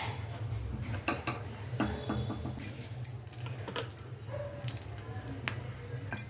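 Kitchen utensils and dishes clinking and knocking, several separate short clinks over a steady low hum.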